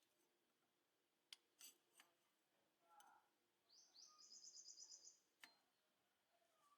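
Near silence with a few faint clicks and, about four seconds in, a faint bird's rapid chirping trill lasting about a second.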